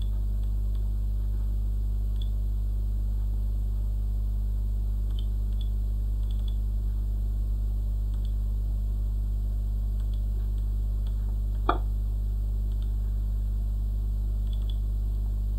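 Steady low electrical mains hum in the recording, with faint scattered computer-mouse clicks and one sharper click near the twelve-second mark.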